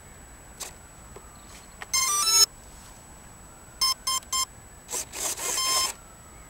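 A click, then the model plane's electronic speed controller sounds its power-up tones: a short stepped tune about two seconds in, three quick beeps, and a longer, noisier tone near the end, the speed controller arming after the flight battery is plugged in.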